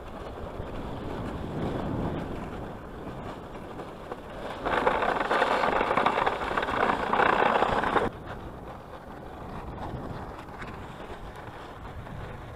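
Dog sled moving over a packed snow trail: steady runner hiss and rumble with wind on the microphone. From about four and a half to eight seconds in, a louder, rougher scraping sets in and then cuts off suddenly.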